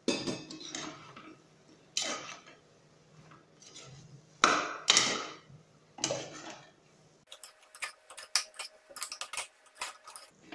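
Metal spoon knocking and scraping against the sides of a pressure cooker while chunks of ridge gourd are stirred into thick masala. The strikes come irregularly at first, then turn into a quick run of light clicks over the last three seconds.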